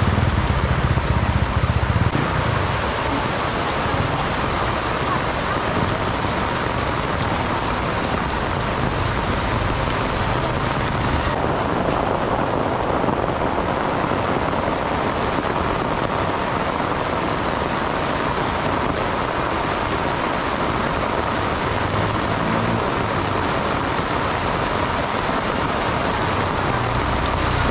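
Torrential rain pouring onto a wet street, a steady dense hiss. The highest part of the hiss briefly dulls for a couple of seconds near the middle.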